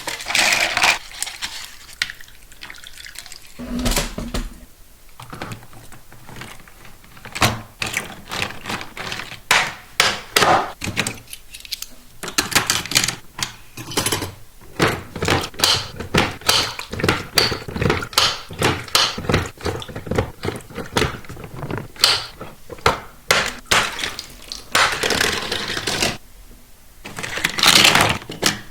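Plastic toy track pieces and packaging being handled: an irregular run of clicks, taps and knocks, with a dull thump about four seconds in and a couple of longer rustling scrapes near the end.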